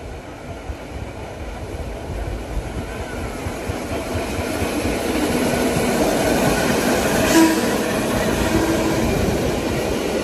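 Vintage subway train running on the rails, growing steadily louder, with a brief sharp sound about seven seconds in.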